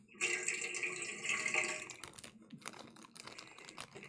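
Water running from the spigot of a drink dispenser into a cup for about two seconds, followed by a run of sharp clicks and knocks.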